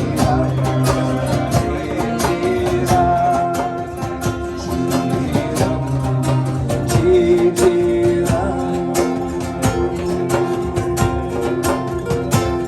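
Live music led by plucked guitar over a steady beat, with held notes throughout and a melody line, perhaps a voice, rising and falling in two short phrases.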